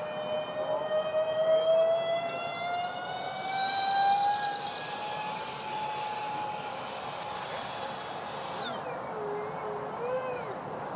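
Electric ducted fans of a Freewing Su-35 RC jet whining in flight, the pitch slowly rising. About eight and a half seconds in, the whine falls away abruptly.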